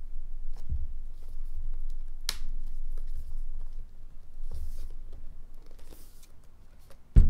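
Hard plastic shell case being pressed onto an aluminium unibody MacBook Pro 13: plastic clicks and rubbing of handling, one sharp click a little over two seconds in, and a heavy thump at the very end.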